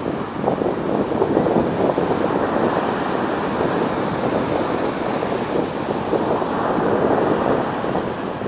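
Sea waves breaking on a sandy shore, a steady rushing surf, mixed with wind buffeting the microphone.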